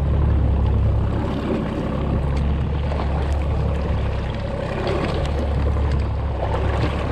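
Steady low rumble of a small fishing boat under way at trolling speed: outboard motor noise mixed with wind on the microphone.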